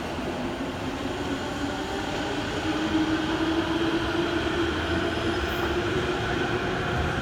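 Electric train running through a station: a steady motor whine over a low rumble of wheels, growing louder about three seconds in.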